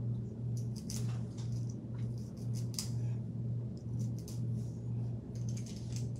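Background music: a low bass line pulsing about twice a second, with faint small clicks over it.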